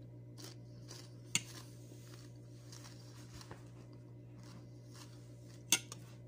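A person quietly chewing a mouthful of cucumber salad, with a few sharp clicks of a spoon against the plate, the loudest about a second in and near the end. A steady low hum runs underneath.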